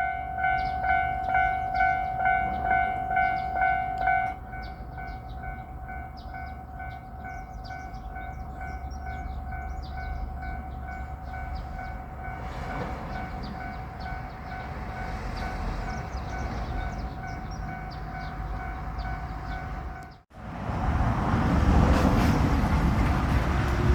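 Railroad crossing bell ringing in even strokes about twice a second, loud for the first four seconds and then much quieter. About twenty seconds in the sound breaks off for an instant. Then a JR Shikoku 6000 series electric train passes with a loud rumble and a rising whine near the end.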